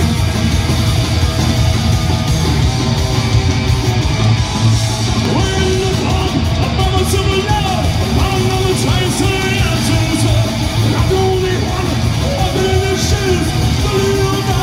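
Psychobilly band playing live at full volume: electric guitar, slapped upright double bass and drums, with singing coming in about five seconds in.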